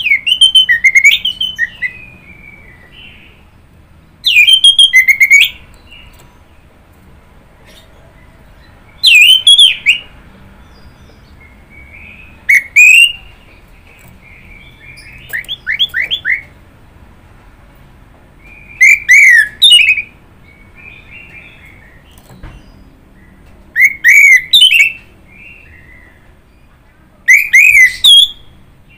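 Orange-headed thrush singing: eight loud phrases of quick, sliding whistled notes, one about every four to five seconds, with soft twittering notes between the phrases.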